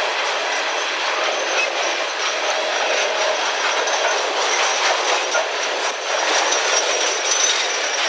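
Cars of a Union Pacific work train rolling past, with a steady clatter of wheels over the rail joints.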